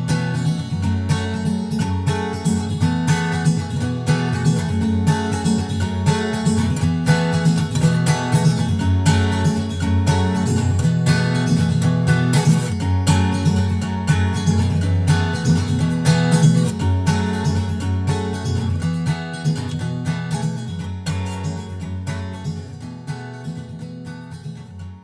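Background music: a strummed acoustic guitar with a steady rhythm, fading out near the end.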